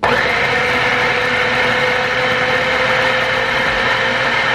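Food processor with a steel blade running steadily at full speed, chopping a wet mix of beans, egg, onion and corn flour into a rough dough. The motor runs with a steady whine, coming on suddenly and cutting off near the end.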